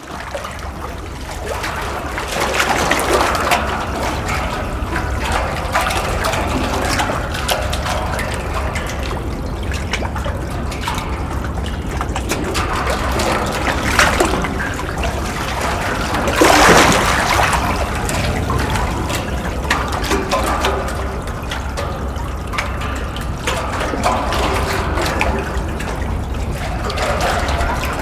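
Water sloshing and gurgling beneath a metal grate, rising and falling in uneven surges, with the biggest swell a little past halfway, over a steady low rumble.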